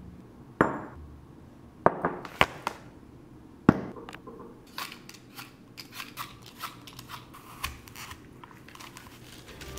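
Kitchen prep on a hard countertop: several sharp knocks of apples, a glass jar and a bottle being set down, then a run of light clicks and scrapes of a knife peeling and cutting apples on a cutting board.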